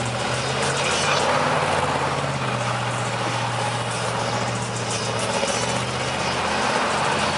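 Pickup truck engine held at high revs while its rear tyres spin and squeal on the pavement in a burnout, doing donuts. The engine note stays steady with small dips in pitch, under a continuous hiss of tyre noise.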